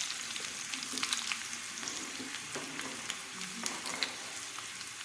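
Hot mustard oil with garlic, ajwain (carom seeds) and cloves sizzling and crackling just after the gas is turned off, slowly dying down.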